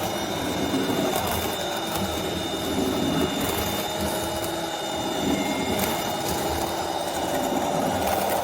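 Radio-controlled construction machines' electric drive motors and hydraulic pumps running: a steady mechanical whine with several high, even tones, a wavering lower rumble and a few faint clicks.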